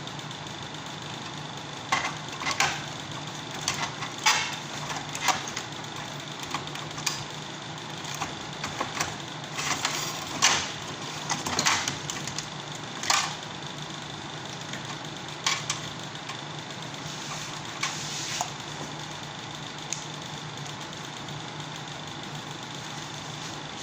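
Irregular clicks and rattles from handling parts and tools while swapping a window air conditioner's control board, clustered in the first two thirds, over a steady machine hum.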